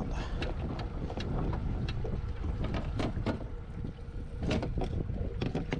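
Water slapping against a small boat's hull, with wind buffeting the microphone and scattered light knocks and clicks.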